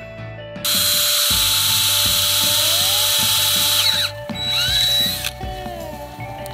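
Cordless drill running at full speed, boring a hole, for about three seconds; it winds down, then runs again in a second, shorter burst that stops about five seconds in.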